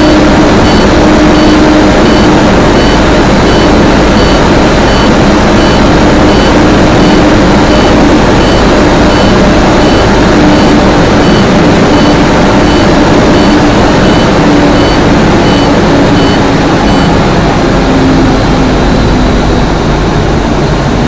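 Navistar International truck's diesel engine running steadily at high idle, heard from inside the cab, while its air compressor builds air-brake pressure. A faint repeating electronic beep, the low-air warning, sounds throughout and stops near the end.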